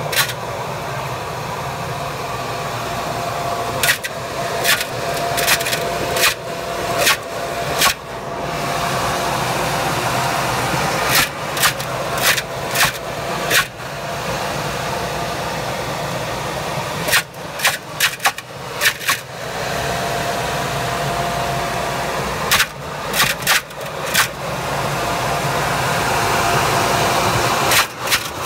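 Homemade apple grinder built from a repurposed commercial vacuum-fan blower, running with a steady whine while its blades smash hand-fed apples into cider mash. The smashing comes as clusters of sharp cracks every few seconds.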